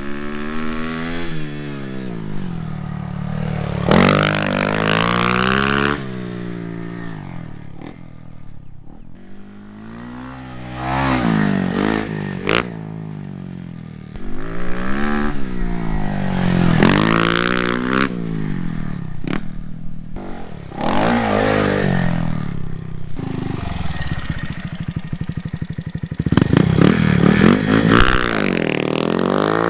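Honda Monkey's 125 cc single-cylinder engine through a Termignoni full stainless exhaust, ridden hard. Its pitch rises and falls again and again as the bike accelerates, shifts and passes by.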